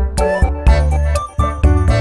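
Background music with a steady beat, about four strokes a second.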